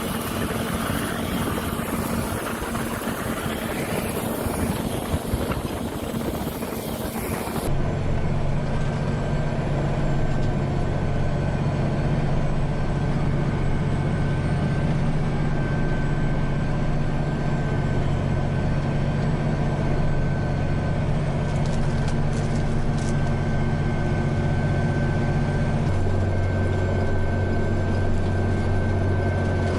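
Wind rushing on the microphone over machine noise, then a large farm machine's engine running steadily with a deep hum and a thin high whine. About four seconds before the end the hum shifts lower and grows stronger.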